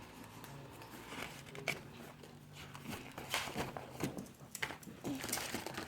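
Scattered soft crunches and crinkles of a crispy butter-chip cracker being bitten and its wrapper handled, spread as separate small clicks through an otherwise quiet stretch.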